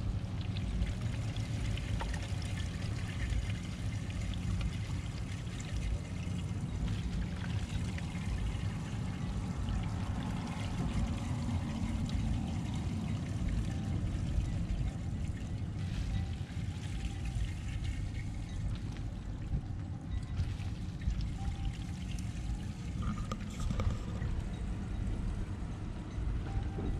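RV grey water (sink and shower water) pouring from a corrugated sewer hose through a clear elbow fitting into a dump station drain, a continuous gushing flow. This is the grey tank being emptied after the black tank, which rinses out the hose.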